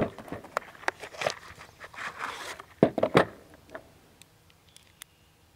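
Cartridges being loaded into a Merwin & Hulbert pocket revolver: a run of sharp metallic clicks and clinks from the gun and the .38 S&W rounds being handled, with a short scratchy rustle between them and a loud cluster of clicks about three seconds in.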